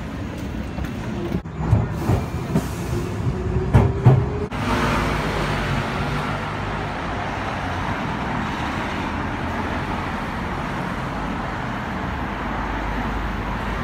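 Echoing station noise with a few knocks and thumps, cut off abruptly about four and a half seconds in by steady road traffic noise from a busy street.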